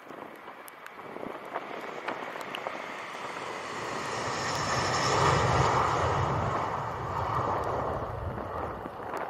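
Jet airliner taking off: the engine noise at takeoff power grows, is loudest about five to six seconds in as the plane lifts off, then eases a little as it climbs away, with a deep rumble under a faint high whine.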